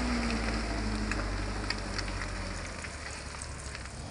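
Diesel engine of a Fuso truck loaded with oil palm fruit rumbling as it drives off on a muddy dirt road, fading over the last couple of seconds. Scattered small clicks and crackle run over it.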